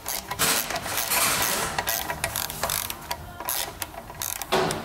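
Ratchet wrench clicking as the oil pan drain plug is unscrewed to drain the engine oil, with a louder burst of noise near the end.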